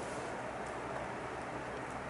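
HO-gauge model train running on the layout out of sight: a steady low running noise with a few faint ticks.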